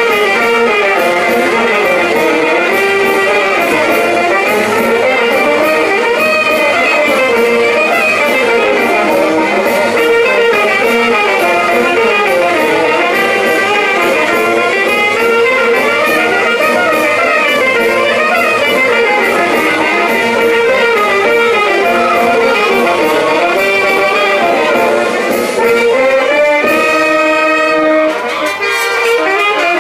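Brass band music: trumpets, saxophones and trombones playing a lively dance tune. Near the end the melody settles onto a few seconds of held chords.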